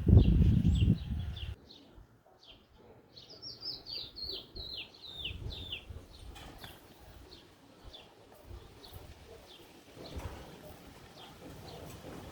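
A bird chirping: a repeated short, downward chirp, a quick run of them a few seconds in, then sparser ones. A loud low rumbling noise fills the first second and a half.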